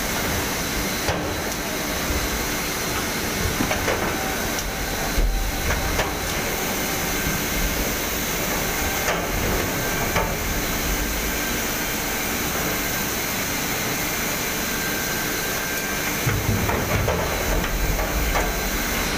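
Palm oil mill conveyor carrying fresh oil palm fruit bunches, running with a loud, steady mechanical noise. Scattered knocks and thuds come as bunches tumble off the end into the chute.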